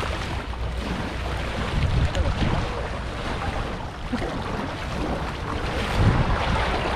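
Shallow seawater sloshing and splashing around wading legs and a hooked shark being brought into the shallows. Wind gusts buffet the microphone about two seconds in and again near the end.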